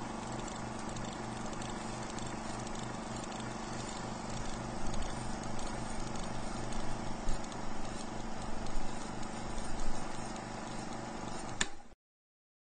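Film projector sound effect: a steady whirr with a fast rhythmic clatter that grows louder and more uneven in the second half, then cuts off suddenly with a click.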